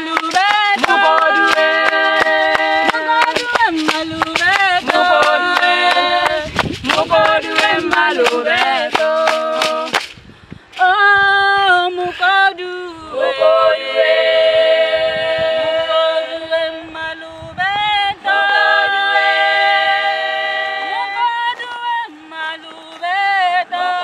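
Several women's voices singing a Setswana traditional song a cappella, with sustained notes in harmony. Hand claps keep time through the first half, then stop partway through while the singing carries on.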